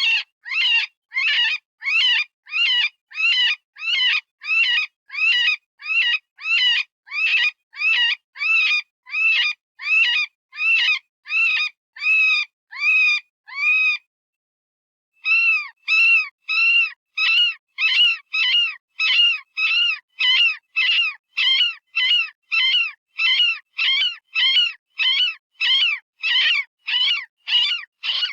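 Synthesized rabbit distress call: a quick, even series of short high-pitched squealing cries, each arching up and down in pitch, broken by a single pause of about a second around the middle. It imitates a rabbit screaming in pain or fear, the sound used to call predators.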